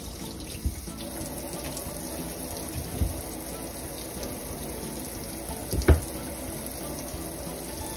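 Kitchen tap running steadily into a stainless steel sink, water splashing over potatoes as they are rinsed clean of soil. A couple of dull knocks sound through it, the loudest about six seconds in.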